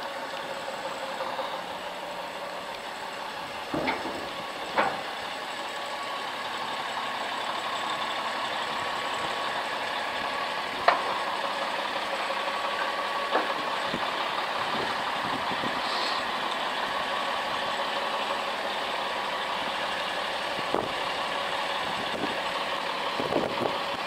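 2004 Sterling LT9500 plow truck's diesel engine idling steadily, with a few sharp clicks about four, five, eleven and thirteen seconds in.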